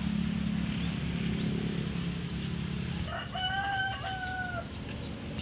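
A rooster crows once, starting about three seconds in and ending on a long held, slightly falling note. Before the crow, a low steady hum runs underneath.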